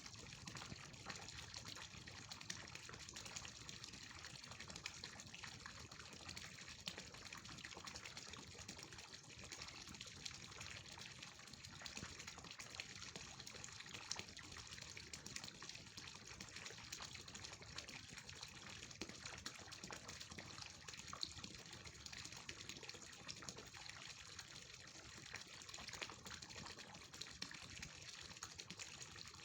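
Faint, steady hiss with light crackle throughout.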